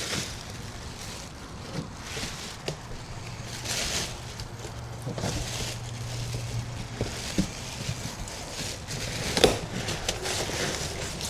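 Handling noises from unpacking a large fridge freezer from its box: rustling packaging and scattered knocks and bumps, the sharpest knock about nine and a half seconds in. A faint low hum runs through the middle for a few seconds.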